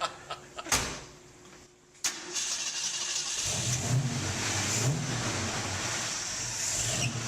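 A thump about a second in, then the 1968 Shelby GT500's 428 cubic-inch V8 is started: the starter cranks and the engine catches about three and a half seconds in, then idles with a few rises in revs.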